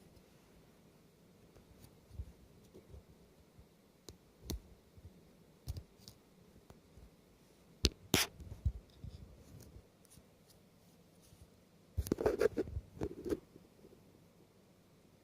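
Small clicks, taps and scrapes from handling a Victorinox SwissCard Classic and drawing out its nail file. The loudest snaps come about eight seconds in, and a quick cluster of taps and scrapes follows about twelve seconds in.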